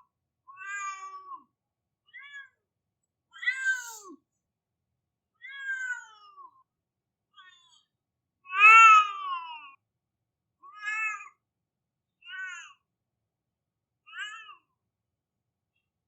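A cat crying, meowing over and over in about nine separate cries of a second or less, most of them falling in pitch at the end. The longest and loudest cry comes a little past halfway.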